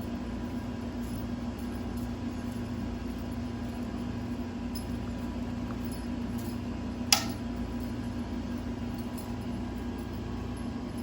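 Steady low mechanical hum, with one sharp click about seven seconds in.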